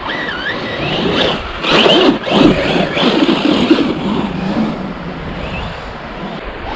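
Corally Asuga 6S brushless electric RC buggy on paddle tyres running through sand, its motor whining up and down in pitch with the throttle. It is loudest between about one and a half and four seconds in.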